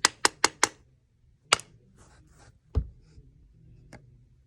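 Hook prostheses clicking and tapping against the awl and thread while handling them: a quick run of four sharp clicks at the start, another click about a second and a half in, and a duller knock a little before the middle.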